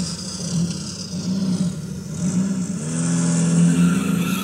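A car engine revving, a recorded sound effect on a car-audio promo CD played through speakers by an Optimus CD-36 car CD player. The engine note wavers, then gets louder and holds steadier about three seconds in.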